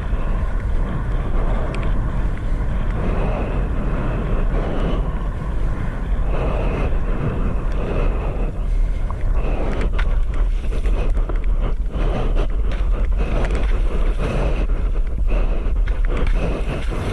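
Heavy wind rumble on an action camera's microphone, mixed with water rushing and splashing around a pump foil board in open water, with scattered sharp splash ticks in the second half.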